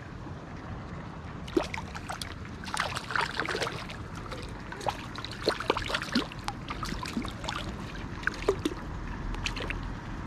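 River water running, with a run of irregular sharp splashes and sloshes in the water.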